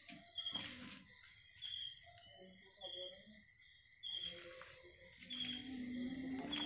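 Night insects: a steady high-pitched cricket trill throughout, with a short chirp repeating about once a second.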